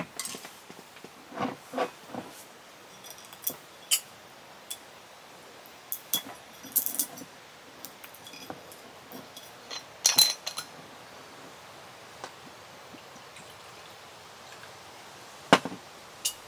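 Scattered light clinks and taps of dishes, glass and utensils being handled, in small clusters with a quiet stretch between; the sharpest knocks come about ten seconds in and twice near the end.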